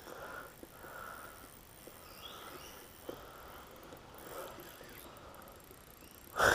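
Quiet outdoor creekside ambience with faint insects and a few soft ticks, then a brief sharp burst of noise near the end.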